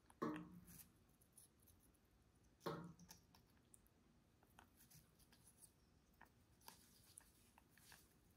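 Faint clicks and crunches of an African grey parrot's beak biting into a hand-held wedge of watermelon. Two short, low vocal sounds stand out, one just after the start and one about three seconds in.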